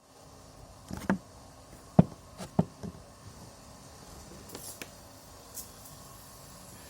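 A handful of sharp knocks and taps over the first three seconds, the loudest about two seconds in, then only faint background noise with a couple of soft scrapes.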